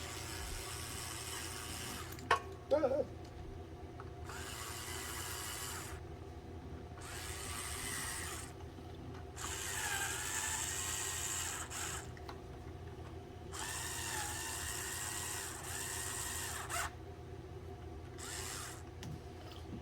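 Cordless drill-driver running in about six separate bursts of one to three seconds, its whine dipping and rising within some bursts, over a steady low hum.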